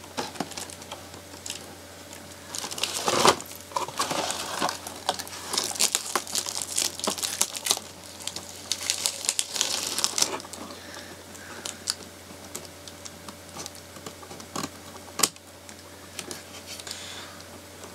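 Plastic and cardboard doll packaging crinkling and rustling as it is handled and cut free with scissors, with sharp snips and clicks. Busiest in the first half or so, then only occasional clicks.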